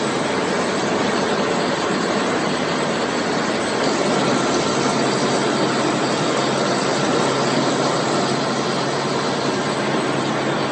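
Concrete block-making machinery running: a loud, steady mechanical noise with a low hum and no distinct strikes.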